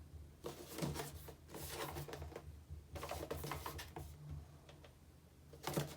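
Boxed toy packaging being handled: quick crinkling and clicking of plastic and cardboard in spells, the busiest from about half a second to four seconds in, with a short burst near the end.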